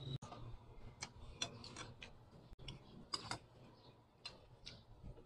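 Faint, irregular small clicks and taps of eating: a metal spoon against a ceramic bowl and fingers on a plate, with soft mouth sounds.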